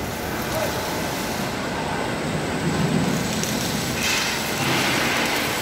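Steady, loud din of a large locomotive assembly shop: a continuous mix of machinery and hall noise with no single distinct event.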